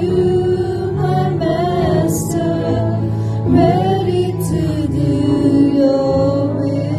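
Live worship song: women's voices singing through microphones over sustained keyboard chords and acoustic guitar.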